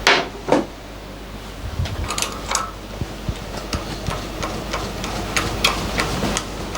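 Milling machine running with a fly cutter facing a block held in the vise: a steady motor hum with an even tick about two to three times a second, one for each turn of the single-point cutter. Two sharp knocks come at the very start.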